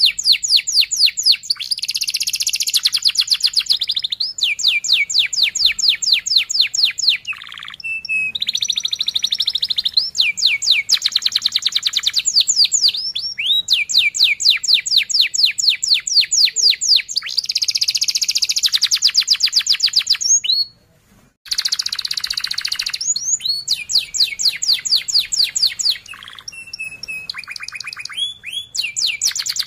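Domestic canary singing a dense, fast song of rolling trills, each phrase a rapid run of repeated notes, one phrase following another almost without pause. There is one short break about two-thirds of the way through.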